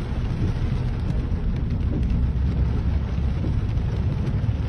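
Steady low rumble of a car driving along a flooded, rain-soaked road, heard from inside the car.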